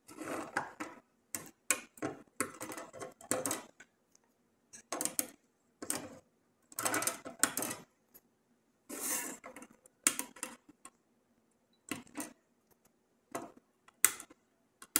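Irregular sharp clicks and short scraping rustles of small hand tools on a circuit board, the kind made when soldered component leads are trimmed with cutters and the board is handled.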